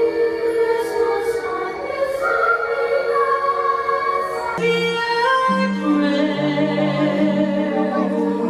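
Show music with a choir of voices singing long, held notes; lower notes come in about halfway through.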